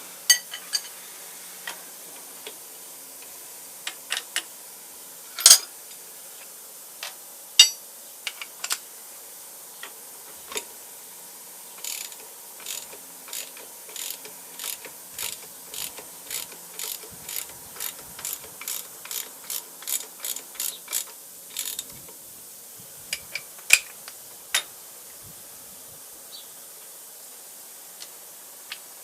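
Metal clicks and knocks from hand work on the parts of an old Rockford shaper. A run of regular clicks, about two a second, comes partway through, like a ratchet or a turned screw clicking, with scattered single knocks before and after.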